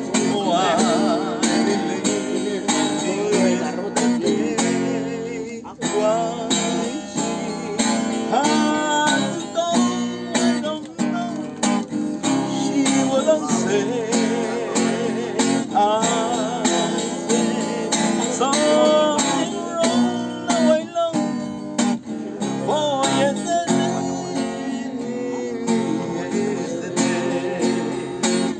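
Acoustic guitar strummed and picked, with a man's voice singing along at times.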